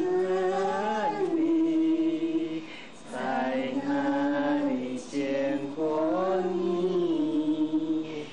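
Several people singing a slow Chinese song together, a woman's voice in front, in long held notes that glide between pitches, with short breaks between phrases.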